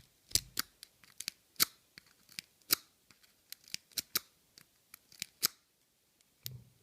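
Rapid, irregular metal clicking of a hook pick being zipped out across the pin stacks of a six-pin FAB padlock under tension, the pins snapping back as it passes. The clicks stop about five and a half seconds in.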